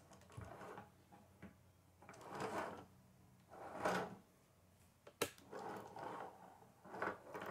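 Plastic K'nex parts of a toy digger model clattering and scraping on a wooden table as the model is handled and its upper body turned, in several short bursts. There is one sharp click a little past five seconds in.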